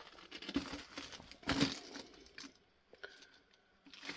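Footsteps crunching on loose rock and gravel, a few uneven steps with the loudest about a second and a half in, in a small echoing space.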